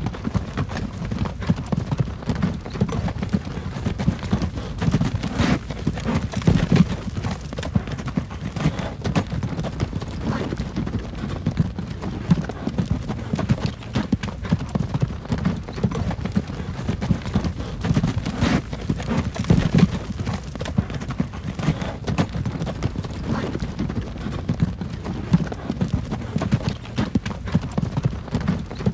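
Horse-drawn wagon on the move: the horse's hooves clip-clopping in a continuous run of knocks over a steady low rumble.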